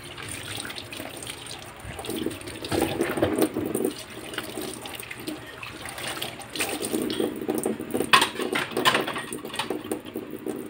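Tap water running into a stainless steel kitchen sink as dishes are rinsed by hand, with a few sharp clinks of dishware.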